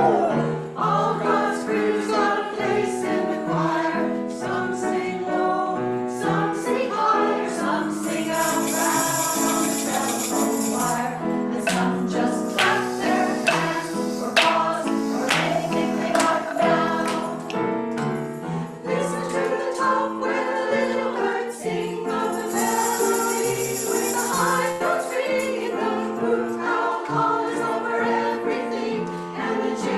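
Music with voices singing together, steady throughout. A high rattling percussion joins in two stretches, about eight seconds in and again about twenty-two seconds in.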